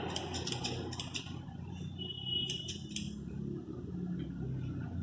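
Steel grooming scissors snipping a dog's tail hair: a quick run of sharp metallic snips in the first second or so, then three more about halfway through, over a low steady hum.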